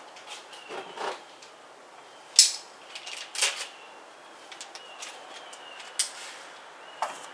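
Scattered clicks and knocks of objects being handled, with a few sharp clacks about two and a half, three and a half, six and seven seconds in.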